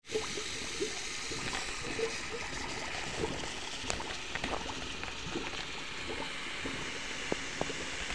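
Water bubbling and trickling: a steady hiss with many small scattered pops and plops.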